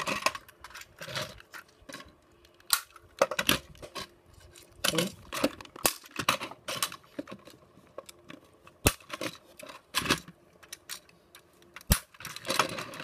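Plastic Tomy Plarail toy train cars being handled and coupled together: irregular clicks and clacks of hard plastic against plastic and against the wooden tabletop.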